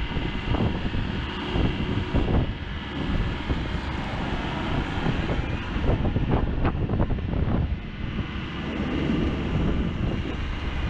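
Diesel engine of a Komatsu PW98MR-6 wheeled excavator running steadily while the machine drives on its wheels, with a few brief knocks a little past the middle.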